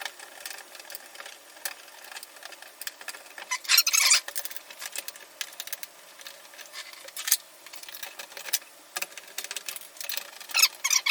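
Utility knife scoring a plastic door panel: repeated squeaky scraping strokes with small clicks, loudest in bursts about four seconds in and near the end.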